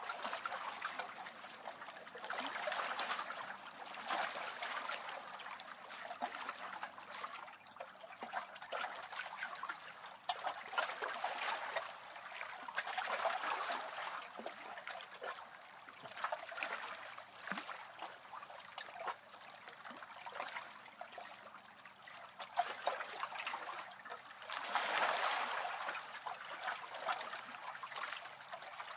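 Water trickling steadily, swelling and fading every few seconds, with its loudest swell near the end.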